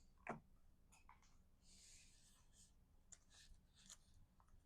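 Near silence with faint clicks and rustles of cardstock pieces being handled: a brief soft tick just after the start and a faint papery rustle about two seconds in.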